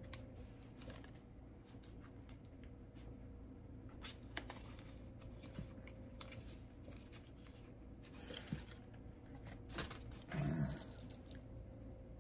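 Faint scattered clicks and light rustling of a small cosmetic package, a tinted lip oil, being handled and opened, with a brief louder sound near the end.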